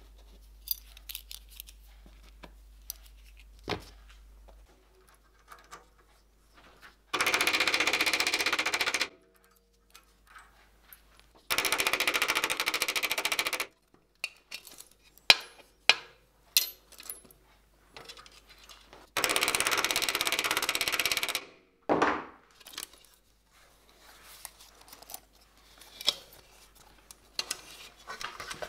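A power tool working steel runs in three bursts of about two seconds each, starting and stopping abruptly. Between the bursts come light metallic clinks and taps from the steel pieces being handled.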